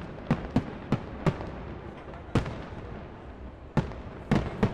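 Aerial firework shells bursting: a string of sharp bangs at uneven intervals, about eight in under five seconds, some coming in quick pairs.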